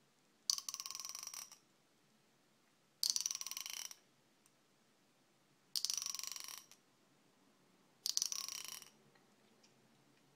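A finger run along the teeth of a fine-toothed comb four times, each stroke a rapid, buzzy run of tiny clicks lasting about a second, with pauses of one to two seconds between strokes.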